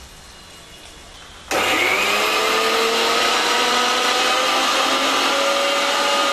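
Electric mixer grinder switching on about a second and a half in and running steadily, grinding a green masala of ginger, garlic, fresh coconut, coriander and green chillies. Its motor whine rises briefly as it spins up, then holds.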